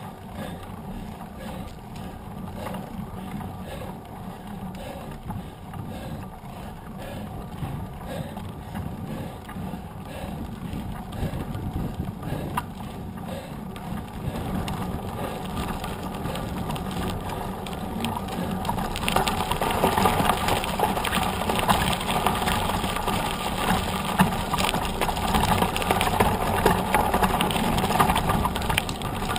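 Mountain bike riding on knobby tyres: a steady tyre hum and frame rattle on asphalt, turning louder and rougher as it rolls onto loose gravel about two-thirds of the way through.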